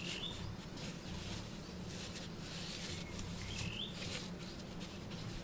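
Hands patting and rubbing dry soil around a cloth-lined hole, soft scratchy rustles over a low steady hum. Two short high chirps come through, one near the start and one just past halfway.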